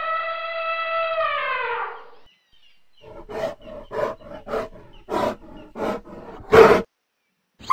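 Recorded wild-animal calls. First comes one long, high, pitched call, held and then falling away at its end. After a pause comes a series of about seven short, rough roaring grunts, the last one the loudest.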